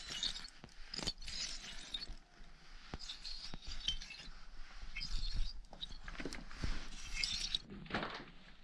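Fingers brushing and tapping the brittle, knobbly crystalline crust of a cave wall, giving off a scatter of light tinkling clinks and scrapes.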